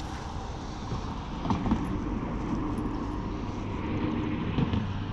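An engine droning steadily: a low hum with wavering higher tones.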